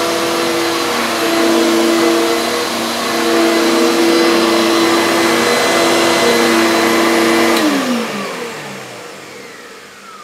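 Electrolux Power System Z1710 1400 W upright vacuum cleaner running at its single full speed while pushed back and forth over carpet, with a low-pitched motor note under a steady hiss. About three-quarters of the way in it is switched off and the motor winds down, its pitch falling away.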